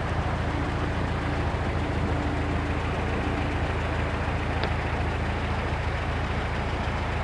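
Vehicle engine running steadily, a low even hum with a fast fine pulse.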